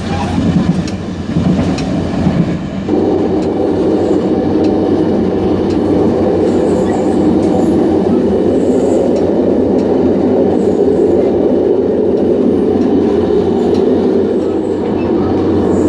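Running noise of a DR3100 diesel multiple unit heard from the gangway between cars: a steady rumble of wheels on rail. It jumps up in loudness about three seconds in and then holds steady.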